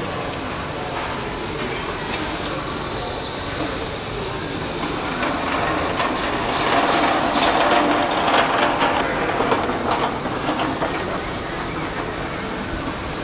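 Hand pallet truck being wheeled over concrete with a pallet on its forks, wheels and forks rattling and clicking. It is loudest a little past the middle, over a steady background noise.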